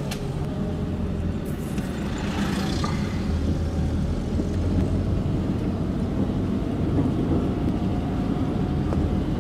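Car engine and road noise heard from inside the cabin while driving through town, a steady low rumble.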